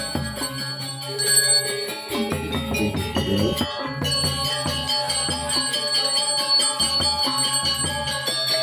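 Balinese gamelan playing, with many struck metal tones ringing and overlapping in a steady rhythm.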